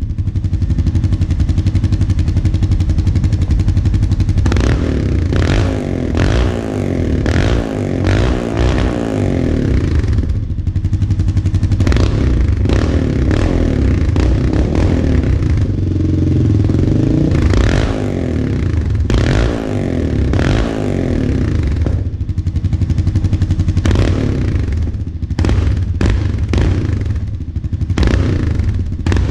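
Honda Rancher 420 ATV's single-cylinder four-stroke engine running through a Big Gun Eco aftermarket exhaust: idling, then revved up several times and let back down to idle.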